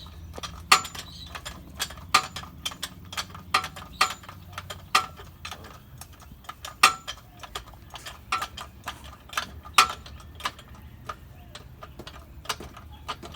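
An irregular string of sharp metallic clicks and clinks, a few every second, from metal hand tools being worked on the truck's drivetrain.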